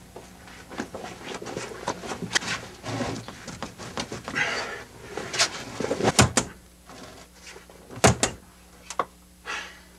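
A locked door being tried and pounded on: irregular knocks and rattles of the door and its handle, ending in two hard fist blows close together about eight seconds in.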